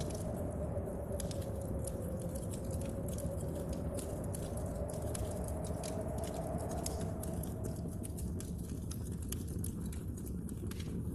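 Wood fire crackling with scattered sharp pops over a steady low rumble of storm wind and rain. A faint howling tone in the wind wavers and dies away about eight seconds in.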